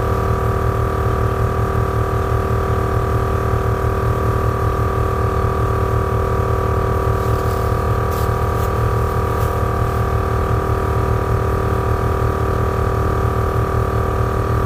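Viair 450C 12-volt air-ride compressor running steadily under load with a fast low pulsing, pumping an air tank up past about 120 psi toward a 175 psi pressure-switch cutoff.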